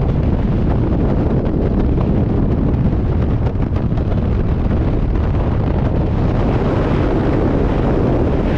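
Loud, steady rush of freefall airflow buffeting the helmet camera's microphone as the skydiver falls.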